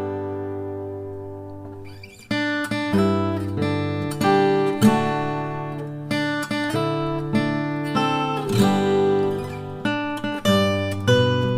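Background music on acoustic guitar, plucked and strummed. A chord rings and fades for about two seconds, then the playing picks up again with a steady run of chords.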